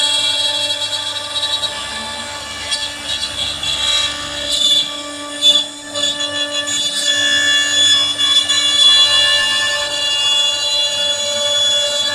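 CNC router spindle whining steadily while the bit carves into ash wood, with short rasping bursts of cutting noise in the first half.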